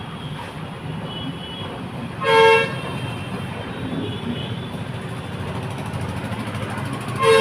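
Two short vehicle-horn toots about five seconds apart, each lasting about half a second, over a steady low traffic rumble.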